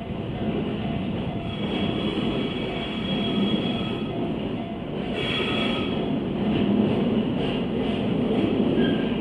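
Keiyo Rinkai Railway freight train rolling over a level crossing, a steady rumble with a thin high wheel squeal coming and going.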